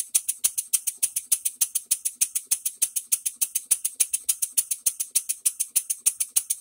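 Rebuilt model bar-stock steam engine running on compressed air, its exhaust giving rapid, even, hissy chuffs, roughly eight a second. It runs without a knock, though it still has an air leak at the inlet.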